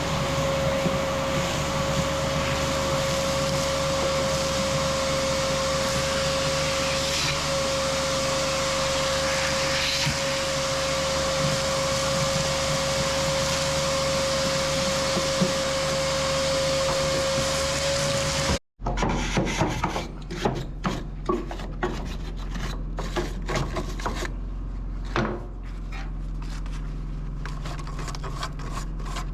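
A power tool running steadily with a constant whine over a rough rubbing, abrasive noise. It cuts off abruptly about three-quarters of the way through and is followed by irregular light clicks and knocks.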